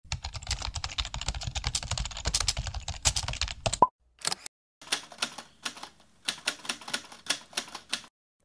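Typewriter sound effect: a fast run of key strikes, a brief tone about four seconds in, then after a short pause a second, sparser run of key strikes.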